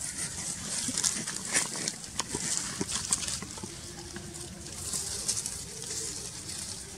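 Irregular rustling and crackling of dry leaves and soil being scratched, in short uneven bursts.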